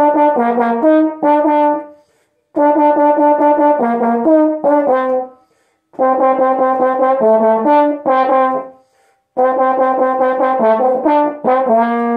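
Solo trombone playing the same short phrase four times, each a quick run of tongued repeated notes followed by a few notes stepping lower, with brief gaps between. The last phrase ends on a longer held note.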